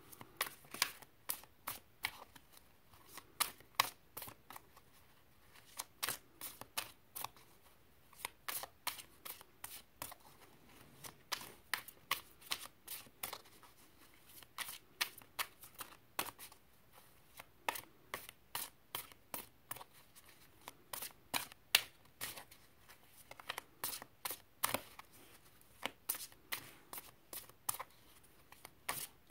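Tarot cards being shuffled and handled by hand: repeated runs of quick, sharp card clicks and snaps with short pauses between them.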